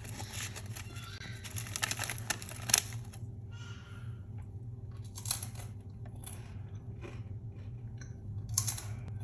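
Crisp crunching and crackling of thin microwaved potato chips, in several bursts (a long run in the first three seconds, then shorter ones), over a steady low hum.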